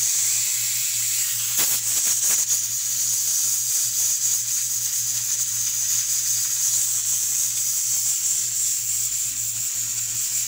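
Aluminium pressure cooker with a weighted valve letting off steam in a steady high hiss, the sign that it is up to pressure. A low steady hum runs underneath.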